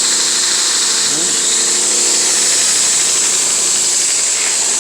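Shop-built 2x72 belt grinder, driven by a swamp cooler motor, running steadily with a loud, even hiss from the belt.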